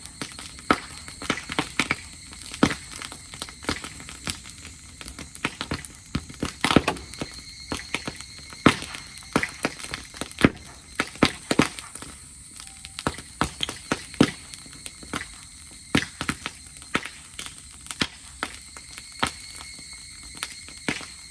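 Campfire of dried grass burning, crackling with irregular sharp pops and snaps.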